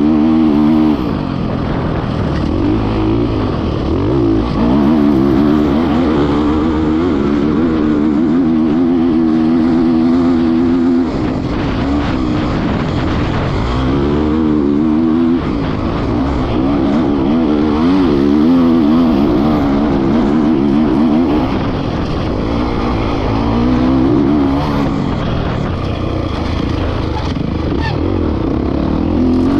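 2024 Kawasaki KX450X's 450 cc four-stroke single-cylinder engine at race pace, revving up and down through the gears again and again, with a few brief drops off the throttle.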